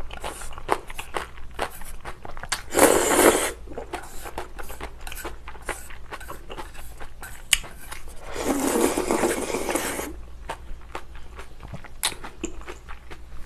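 Close-miked eating: crisp, crunchy chewing of noodles and bean sprouts with many small clicks, broken by two slurps from a bowl of shrimp noodle soup, a short one about three seconds in and a longer one around eight to ten seconds in.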